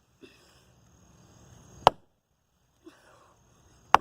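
Two sharp hammer blows about two seconds apart, striking a fidget spinner's metal bearing on a wooden block, with faint handling noise between them.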